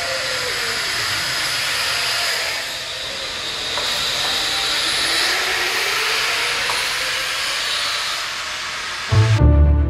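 Zip-line trolleys hissing along steel cables as riders speed down. Loud music cuts in near the end.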